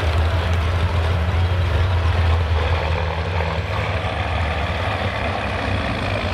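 Semi truck's diesel engine running at the pulling sled, a steady deep rumble that builds a little about halfway through as the truck starts to take up the slack.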